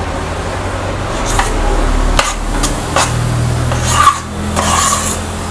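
A metal spoon scrapes and clinks against a stainless steel pot as it stirs a thick mixture of melting chocolate chips and peanut butter. There are several sharp clinks among the scraping, over a low steady hum.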